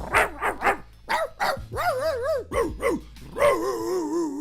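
A man's vocal impression of a dog: a quick run of short yips and barks, then two longer wavering whines, the last one sliding down in pitch at the end.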